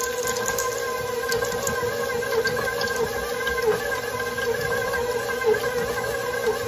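Electric stand mixer running with its flat beater through thick chocolate-chip cookie dough: a steady motor whine with a faint pulse about every two-thirds of a second as the beater goes round.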